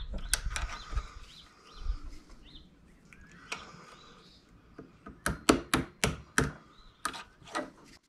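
Ball-peen hammer tapping, a quick run of about nine light taps in the second half after a couple of single taps earlier, as a new wiper seal is driven into the gland of a hydraulic loader lift cylinder.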